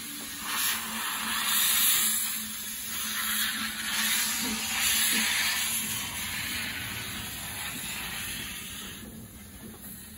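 Steam locomotive hissing. The hiss swells and fades several times, then dies away toward the end, over a faint steady low hum.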